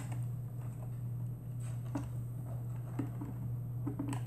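Faint, scattered plastic clicks and taps as small cable connectors are plugged into the back of a patient-monitor printer module, over a steady low hum.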